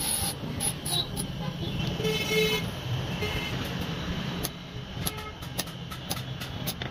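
An electric bench grinder's motor hums steadily while a steel blade is ground briefly at the start. A vehicle horn sounds about two seconds in. In the last couple of seconds a hammer strikes the metal on a small anvil in a run of irregular taps.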